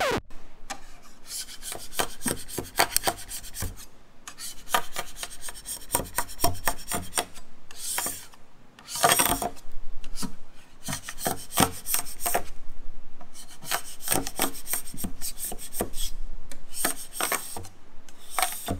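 Hand scraper pushed in repeated short strokes across a glued-up hardwood cutting-board panel, scraping off dried glue squeeze-out: a run of rasping scrapes with a brief lull about eight seconds in.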